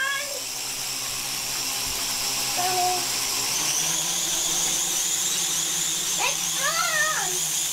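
Vectron remote-control flying saucer toy, its small electric motor and fan running with a steady high whine that rises slightly in pitch about four seconds in. A child's voice cries out briefly near the end.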